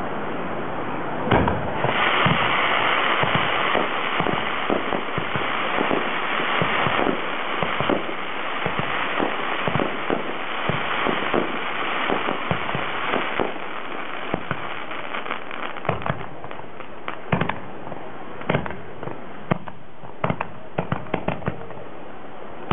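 Starmine fireworks barrage: shells launched and bursting in quick succession, with a dense hiss through about the first half and many sharp bangs that come thick and fast towards the end.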